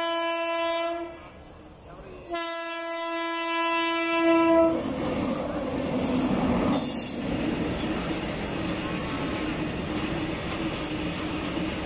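Indian Railways WAG-9 electric locomotive sounding its horn in two long blasts: the first ends about a second in, the second lasts about two and a half seconds. Then the locomotive and its covered freight wagons pass close by with a steady rolling noise of wheels on rails.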